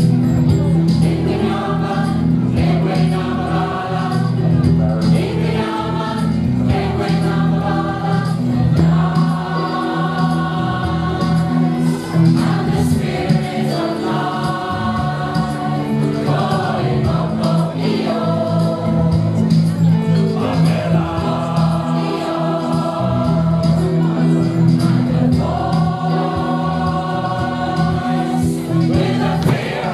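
Large mixed choir of men and women singing a song in harmony, several voice parts together over a steady low part.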